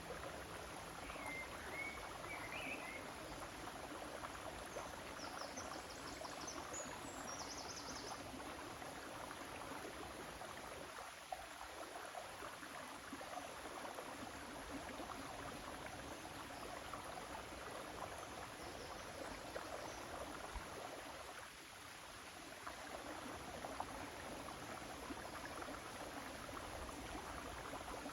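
River water flowing with a steady rushing sound, with a few faint high chirps a few seconds in.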